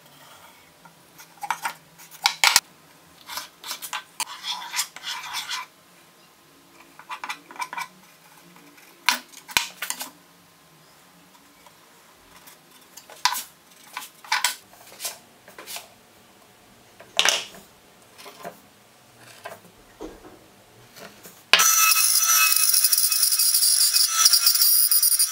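Short scratchy strokes of a marker and pen drawing on plywood. About three-quarters of the way through, a bandsaw starts suddenly and runs loud and steady, its blade cutting the plywood.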